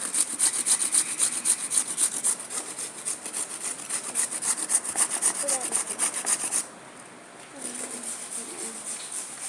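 Rapid, even rubbing or scraping strokes, about five a second, that stop suddenly about two-thirds of the way in and come back fainter near the end.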